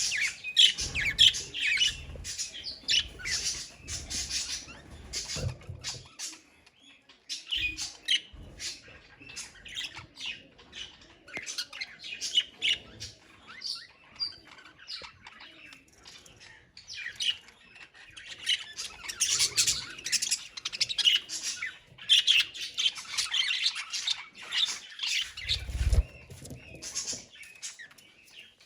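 A colony of budgerigars chattering and chirping together in busy bursts of overlapping warbles and squawks, with some low thumps and wingbeats.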